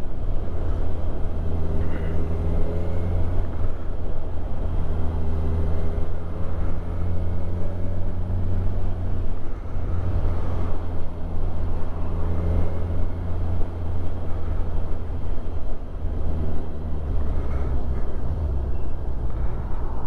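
Kawasaki Ninja 1000SX inline-four engine running at a steady cruise, picked up by a helmet microphone over a heavy low rumble of wind and road noise. The engine's steady hum fades briefly a few times.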